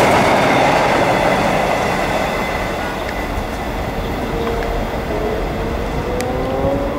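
South Shore Line electric commuter cars passing close, with a rush of wheel and rail noise that eases after a couple of seconds. From about five seconds in, an electric train's whine rises slowly in pitch.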